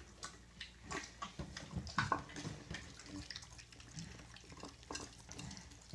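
Mini piglets lapping and slurping goat's milk from a shallow dish: scattered wet smacks and clicks, a little thicker about two seconds in.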